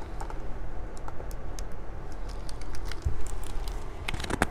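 Light scattered clicks and taps of a hardcover picture book being handled and moved, with a cluster of louder ticks near the end.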